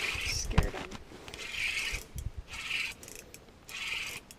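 Short rasping scrapes repeating about once a second, with a single low knock about half a second in.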